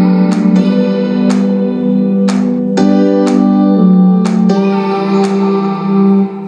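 Music played back through Technics DV290 speakers: held keyboard chords with sharp, regular percussion hits, dropping out briefly at the very end.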